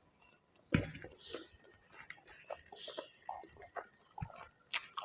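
Close-miked eating sounds: chewing with wet mouth smacks. Sharp clicks come a little under a second in and again near the end.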